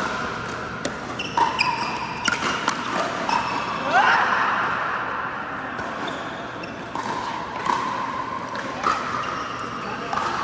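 Pickleball play on an indoor court: several sharp pops of paddles striking the plastic ball, mixed with short squeaks of sneakers on the court floor, one of them rising in pitch about four seconds in.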